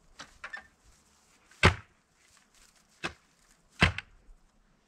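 A digging tool chopping into the soil of the hole: three sharp strikes. The first and loudest comes about one and a half seconds in, and the other two come close together near the end, with a few lighter knocks at the start.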